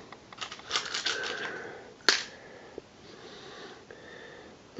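Quiet handling sounds while the next find is fetched: faint rustling with a single sharp click about two seconds in, and a few faint short tones.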